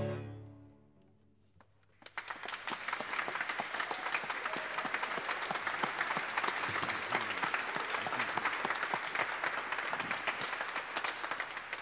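The last chord from violin, cello and keyboard rings away, and after a short pause an audience applauds steadily, the clapping tapering off near the end.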